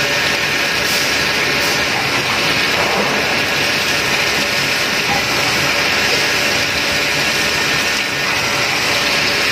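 Bridgeport CNC machining center running a cut under flood coolant: a steady loud hiss of coolant spray splashing over the spindle and tool, with a faint steady whine underneath.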